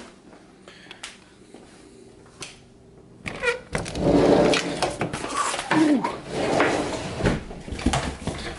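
A few light clicks, then about three seconds in a sliding glass door is unlatched and rolled open. A dog follows, scrabbling and rustling as it comes in and climbs onto a couch, with a few short squeaks.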